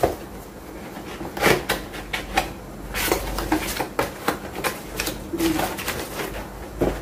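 Cardboard tripod box being opened and handled: a run of rustles, scrapes and short knocks of cardboard and packing.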